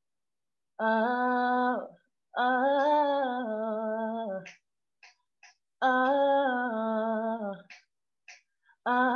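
A woman humming a wordless melody a cappella, warming into an improvised reggae tune, in four phrases of one to two seconds each, held on a few steady notes with small steps in pitch.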